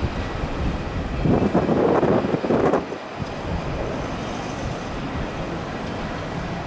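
Jet noise of a landing Airbus A350-900's Rolls-Royce Trent XWB engines, heard as a steady rush mixed with strong wind on the microphone. A louder rushing burst comes about a second in and lasts under two seconds.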